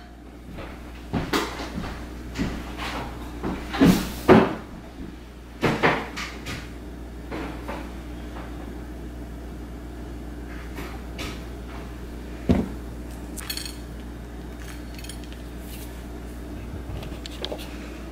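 Kitchen handling sounds: scattered knocks and clicks as things are handled on the counter, the loudest a pair about four seconds in, over a low steady hum.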